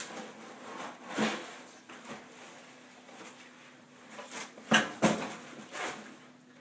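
Unboxing handling noise: a cardboard box being tipped and set down and a snare drum in a cloth bag lifted out, with rustling and scraping of cardboard and fabric. A few sharp knocks stand out, the loudest a pair about five seconds in.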